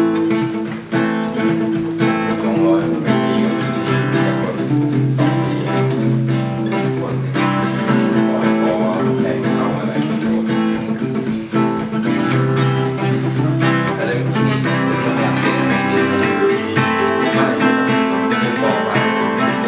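Two acoustic guitars played together, a continuous run of plucked notes and chords.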